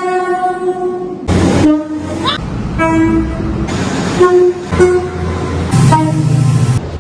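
Train horns: a held multi-note horn chord, then about a second in a string of short horn blasts at different pitches, broken by bursts of train running noise.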